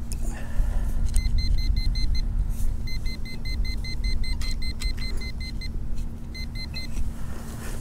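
Metal detector beeping on a buried target in rapid, evenly pulsed high beeps, about six a second, in three runs with short breaks, over a steady low rumble.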